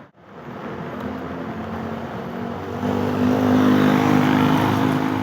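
Bus engine running close by as the bus passes, with a steady pitched drone that grows louder about three seconds in.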